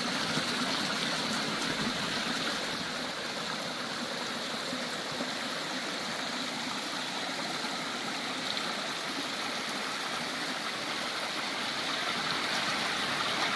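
A creek running steadily, an even rush of flowing water.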